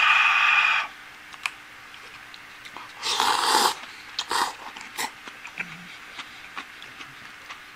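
Instant tempura soba noodles slurped from a cup: a loud slurp at the start and another about three seconds in, followed by a shorter one, with small clicks between.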